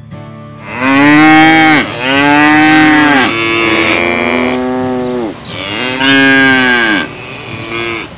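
An animal calling over and over: several long, drawn-out calls of about a second each, every call rising and then falling in pitch.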